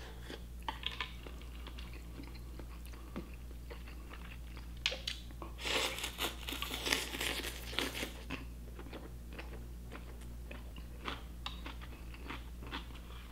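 Close-miked chewing and crunching while eating a bowl of Korean cold noodles with crisp radish and cucumber. There is a denser run of crunching about halfway through, over a steady low hum.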